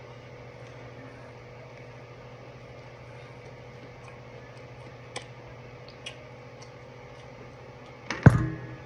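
Steady low room hum with a couple of faint mouth clicks from chewing saucy chicken wings, then a sharp loud knock with a short ring near the end as a hand reaches into the glass baking dish.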